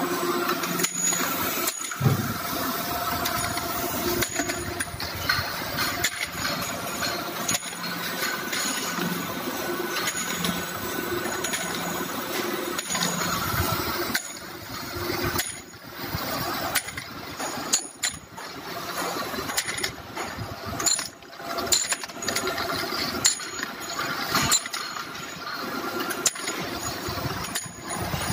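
Horizontal-spindle duplex surface grinding machine running with a steady hum, its coolant flowing, while metal workpieces clink sharply and irregularly as they move through it and along the discharge chute.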